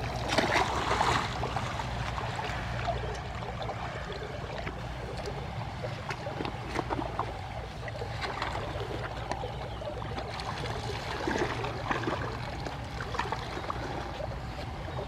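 Shallow water splashing and trickling as a person wades and handles a fine-mesh net fish trap and a cloth bag, with a louder splash in the first second or so, over a steady low rumble.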